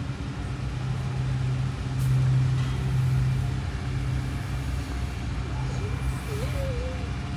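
Car engine idling, a steady low hum that grows a little louder about two seconds in and then eases back.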